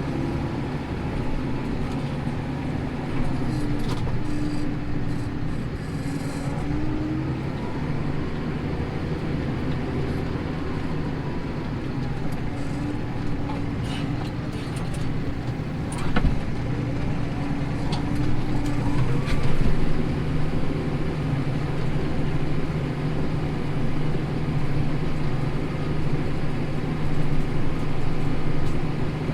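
Tractor engine running steadily under load while pulling a plough through stubble, heard from inside the cab, with a few sharp knocks about halfway through. The engine note rises slightly about two-thirds of the way in.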